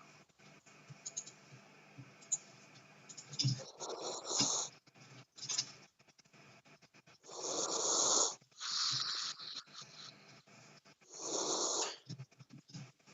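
A person snoring: three loud snores about four seconds apart, the middle one trailing into a softer breathy hiss, with faint clicks in between.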